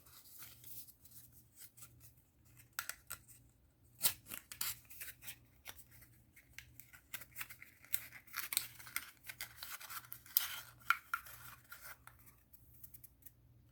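Cardboard Happy Meal box being folded and assembled by hand: faint scattered clicks, creases and rustling of the cardboard, busier in the latter half.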